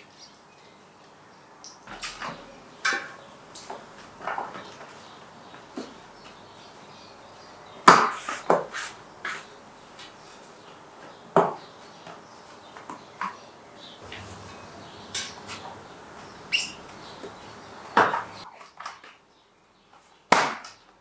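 A bicycle tyre and wheel being handled for fitting: irregular clicks, taps and knocks, with a few louder knocks among them.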